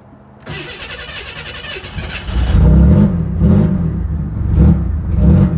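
1991 Chevrolet Camaro engine being cranked by the starter for about two seconds, then catching and running loud, with the throttle blipped a few times. It is a hard start that needs a little gas to fire.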